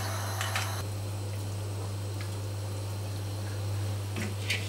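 Liquor poured from a bottle into a pot of hot water: a light splashing hiss that stops about a second in, over a steady low hum. Near the end, a metal skimmer clicks a couple of times against the cast-iron kazan.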